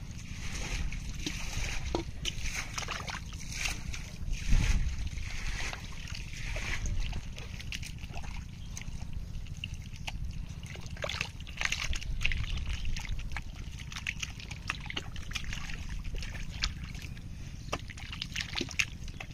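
Hands squelching and sloshing through wet mud and shallow water, with scattered wet slaps and splashes, the loudest about four and a half seconds in, over a steady low rumble.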